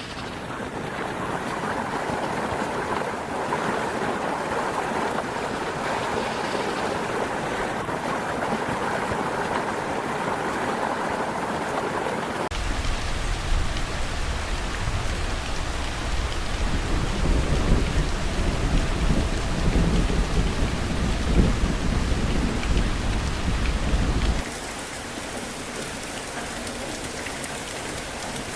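Heavy rain, heard in several separate recordings: a steady hiss of rain at first, then a louder stretch from about halfway through with a deep rumble underneath, then a quieter rain hiss near the end.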